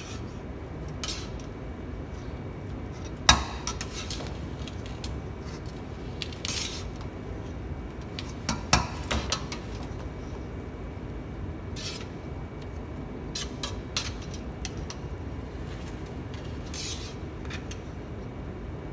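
Metal serving spoon scraping and clinking against a stainless steel pot as cooked biryani rice is mixed. The loudest is a sharp clink about three seconds in, then a cluster of knocks near nine seconds, over a steady low hum.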